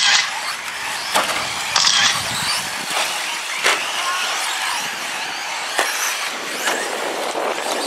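Radio-controlled 4x4 short course trucks racing on a dirt track: a steady whir of motors and tyres on dirt, broken by about five sharp knocks as the trucks land off jumps and strike the track.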